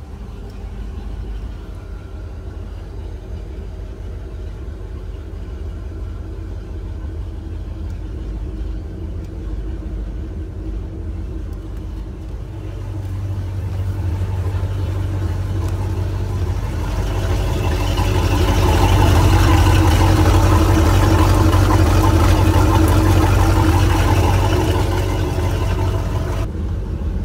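MerCruiser 350 MAG 5.7-litre V8 inboard engine running steadily out of the water to warm up, a low rumble at an even pitch. It gets louder from about halfway through and eases back near the end.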